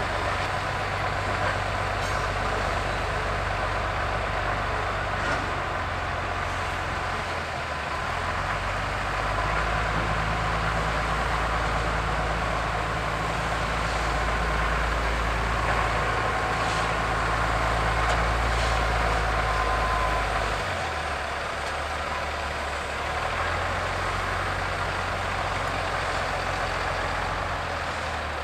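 Large diesel wheel loader's engine running. It revs up under load about eight seconds in and drops back to a lower speed about twenty seconds in.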